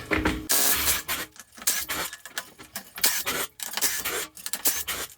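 Impact wrench undoing the front wheel nuts of a Vespa scooter. It runs hard once for under a second, then in a series of short bursts.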